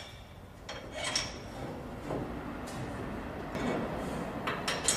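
Metal clinks and knocks at a wheel rim straightening machine, several separate ones over a steady low rumble, with a louder cluster near the end.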